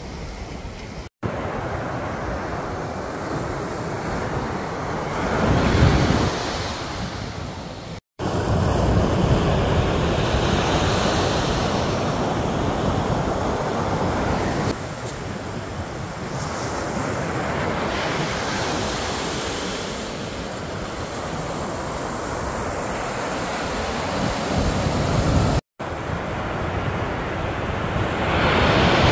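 Ocean surf breaking on the beach, with wind buffeting the microphone; a wave swells and crashes about six seconds in and another near the end. The sound cuts to silence for an instant three times.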